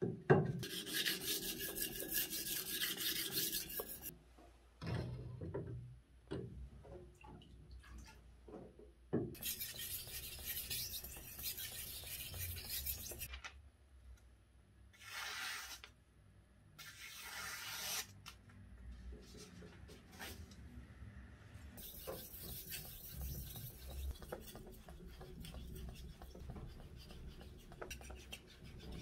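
Wet whetstone work: hard abrasive scraping strokes across a wet sharpening stone, in several runs a few seconds long. Two short slicing hisses near the middle fit a sharpened kitchen knife cutting through paper. Near the end come fainter, steady strokes of the knife blade being sharpened on the stone.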